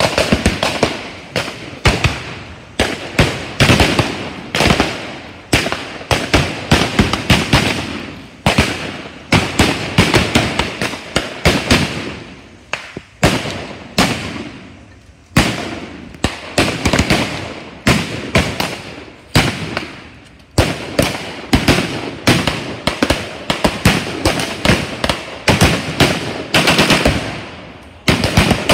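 Rapid, sustained gunfire from blank-firing WWII-style rifles and automatic weapons: many overlapping shots and quick bursts, each with a short echo, thinning briefly about halfway before picking up again.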